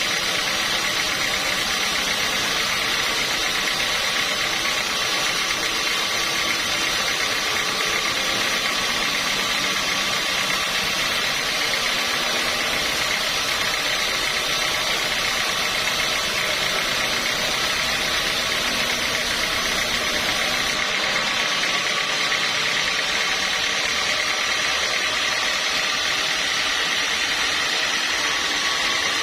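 Sawmill machinery running steadily, a dense mechanical drone with steady tones in it; about two-thirds of the way through the lowest rumble and the highest hiss drop away.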